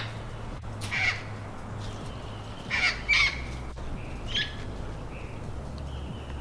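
Wild parrots squawking: several short, harsh calls spaced a second or two apart, over a low steady hum.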